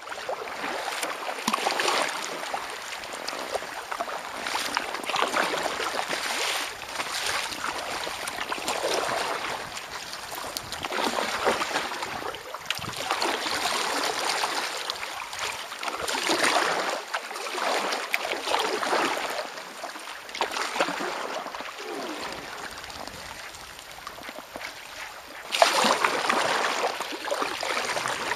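Kayak paddle strokes in lake water, a swell of splashing and dripping about every two seconds as the blades dip and lift, louder for the last few seconds.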